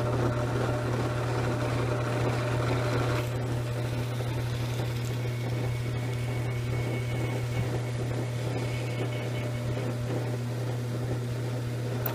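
Drill press motor running steadily while a 7mm twist bit reams out the existing quarter-inch hole in a hand-held glued-up pen blank, cutting smoothly. The higher part of the sound drops away about three seconds in.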